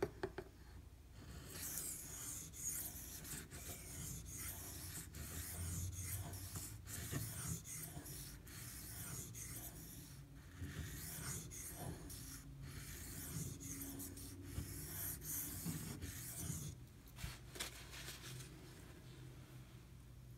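1095 carbon-steel pocketknife blade being stroked back and forth on a Shapton Glass whetstone: a scratchy rasp of repeated sharpening strokes, grinding the bevel to raise a burr. The strokes pause briefly about halfway through and stop a few seconds before the end, followed by a few light clicks; a low steady machine hum runs underneath.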